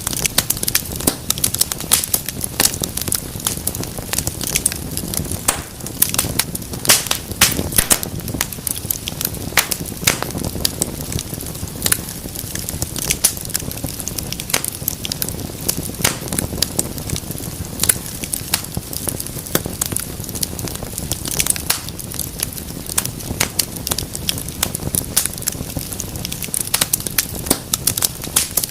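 Wood fire crackling in a fireplace: a continuous stream of sharp pops and snaps, several a second and irregular, over a soft steady rush of the flames.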